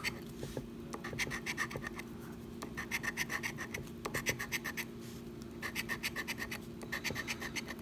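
A large metal coin scratching the coating off a paper scratch-off lottery ticket: quick back-and-forth strokes in three runs with brief pauses between them.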